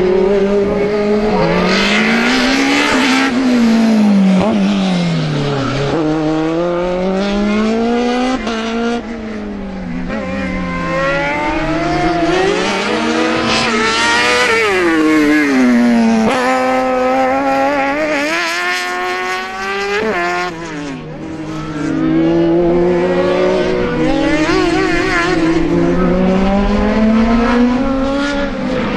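Racing car engines at full throttle. The revs repeatedly climb and then drop sharply at each gear change, and fall away deeply twice as the cars slow.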